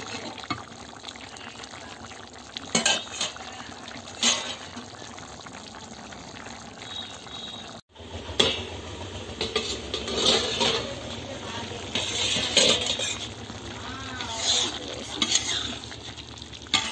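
A spatula stirring and scraping thick vegetable curry in a wok over a steady sizzle as the last of the gravy cooks off. There are irregular scrapes and clinks against the pan, and a short gap about 8 seconds in.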